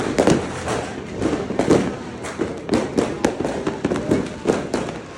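Fireworks going off in a rapid, irregular barrage of sharp bangs and pops, several a second with no pause.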